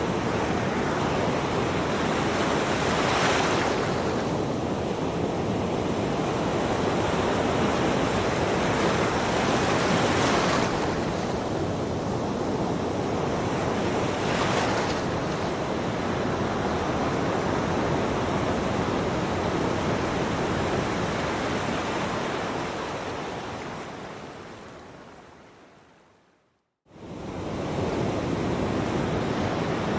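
Ocean surf washing onto a beach: a steady rush with three stronger waves breaking, the first a few seconds in. Near the end it fades away to a moment of silence and starts up again, as at a loop point in the recording.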